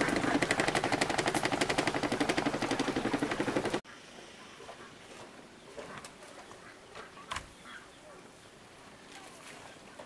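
A small engine running with a fast, even beat, which cuts off abruptly about four seconds in. After that it is quiet, with a few soft knocks, the clearest about seven seconds in.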